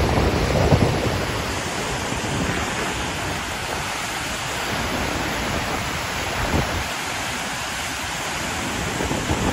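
Steady roar of floodwater rushing through the Trị An hydropower dam's open spillway, with wind buffeting the microphone in the first second and a half.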